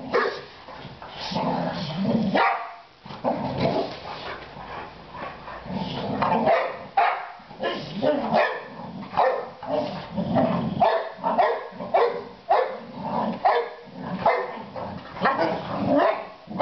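Boxer dogs barking again and again in rough play, about once or twice a second, with longer low growls in between.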